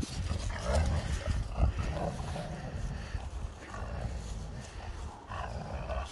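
Alaskan malamute making low, growly grumbling vocalisations in a few short bouts, over a low rumble on the microphone.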